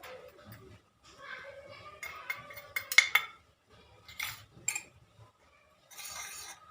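A spoon scraping and clinking against a cooking pot as masala is stirred into Maggi noodles cooking in water, with a cluster of sharp taps about three seconds in and a short scraping rush near the end.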